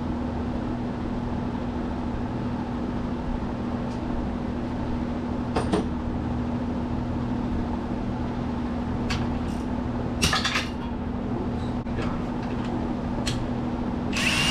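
A steady mechanical hum under scattered metal clinks and clatters of tools and parts being handled, with a longer rattle about ten seconds in.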